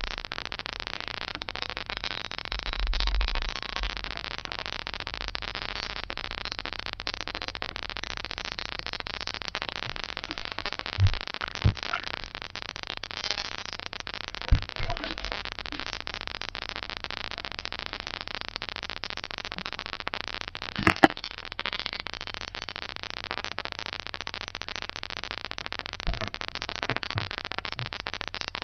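Steady hiss of recording noise from a low-quality camera microphone, broken by a few scattered soft knocks. The loudest knock comes about two-thirds of the way through.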